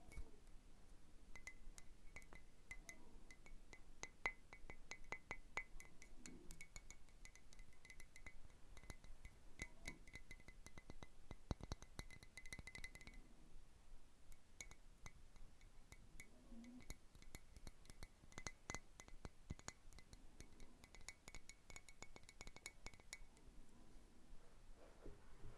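Fingernails tapping quickly and softly on a glass Christmas bauble, each tap making it ring with a faint high tone. The tapping pauses briefly about halfway through.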